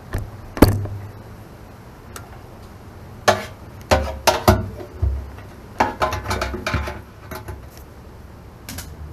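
Channel-lock pliers clanking and scraping against the steel hydraulic reservoir and filter while a filter is tightened inside the tank. Irregular metallic clinks come in small clusters, the sharpest about half a second in.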